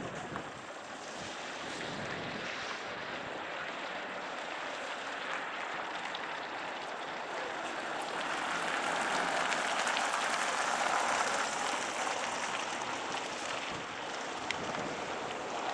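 Steady rushing outdoor background noise with no clear tones, growing a little louder about halfway through and easing off again.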